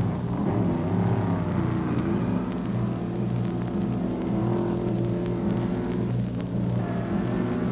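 Scarab race car's Chevy V8 engine running steadily, its pitch rising and dipping slightly.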